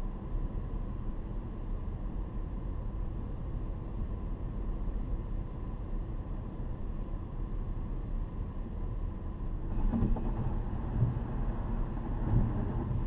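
Cabin noise of a 2012 Ford Fusion Sport cruising with the resonator cut out of its stock exhaust: a steady low exhaust and road rumble with no drone. About ten seconds in it grows louder and rougher for a few seconds, with some low thumps.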